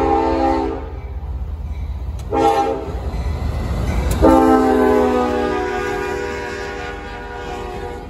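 Horn of a CSX ES40DC diesel locomotive sounding the grade-crossing signal as it passes. A long blast ends about a second in, a short blast follows, then a final long blast from about four seconds in whose chord drops in pitch as the locomotive goes by. A low diesel rumble runs underneath.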